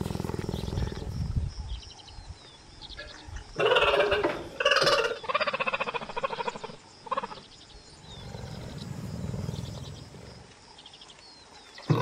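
Big cat vocalising: a low rumbling growl, then two loud harsh, rasping calls at about four and five seconds in, a short call near seven seconds and another low rumble later.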